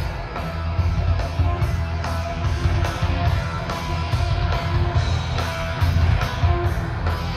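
Live heavy metal band playing through a large outdoor stage PA, heard from the crowd: distorted electric guitars, bass and drums with a steady beat.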